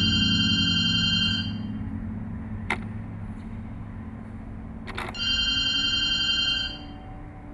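A high electronic ringing tone, like a telephone ring, sounds twice, each ring about a second and a half long. Two sharp clicks fall between the rings.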